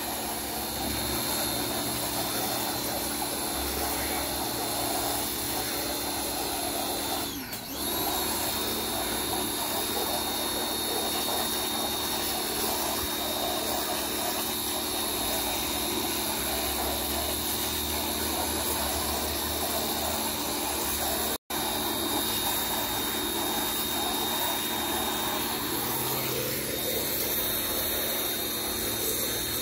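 Pressure washer running steadily, its motor and pump whining under a hiss of high-pressure water spraying siding. It dips briefly about seven seconds in.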